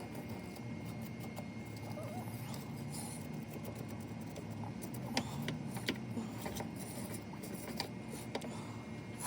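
Light scraping and clicking from hand-cleaning corroded car battery terminals, scattered irregularly over a steady low background hum.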